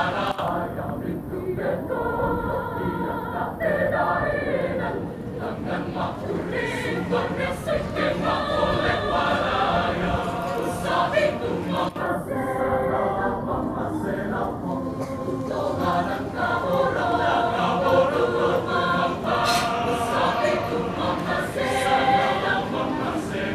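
A mixed choir singing a Christmas choral piece, many voices in harmony with sustained notes.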